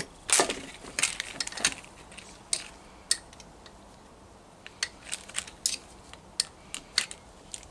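Hand tools clinking on a car shock absorber's top nut as a spanner and locking pliers work it: irregular sharp metal clicks, loudest in the first second and a half, then lighter ticks from about five seconds in.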